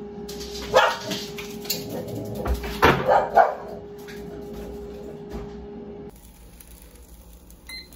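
A dog whimpering and barking briefly a few times, loudest about three seconds in, over a steady appliance hum that stops about six seconds in.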